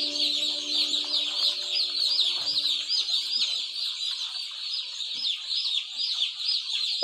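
A large brood of day-old chicks peeping constantly, many high, falling chirps overlapping into a steady chorus.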